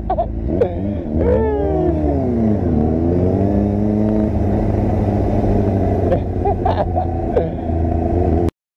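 Motorcycle engine accelerating: the pitch rises, drops once as it shifts gear, climbs again and then holds steady at cruising speed, before cutting off suddenly near the end.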